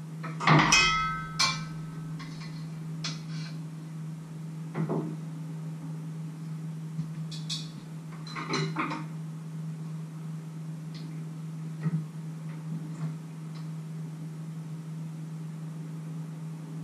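A metal frying pan clatters down on a wooden board with a short metallic ring, followed by scattered knocks and clinks of kitchen utensils and pans. A steady low hum runs underneath.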